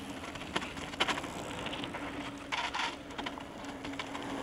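Mountain bikes passing on a paved descent: tyre noise with scattered clicks and rattles, over a faint steady hum.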